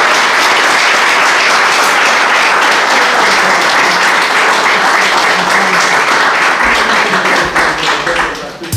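Audience applauding steadily, thinning out and dying away near the end.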